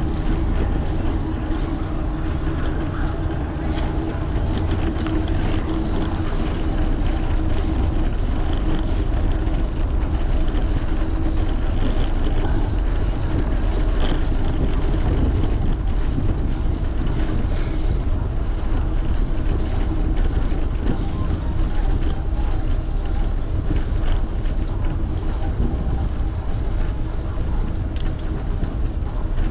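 A fixed-gear bicycle rolling over brick pavers: steady tyre and drivetrain rumble with many small rattling clicks, under heavy wind noise on the bike-mounted camera's microphone.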